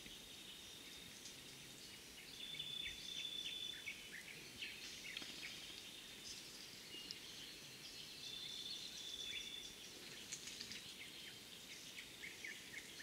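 Forest ambience: scattered high bird chirps, and a high steady buzz that swells twice for about a second.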